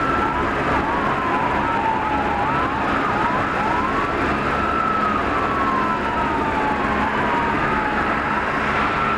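Several police car sirens wailing at once, their overlapping slow falling-and-rising tones over a steady rumble of engines and road noise.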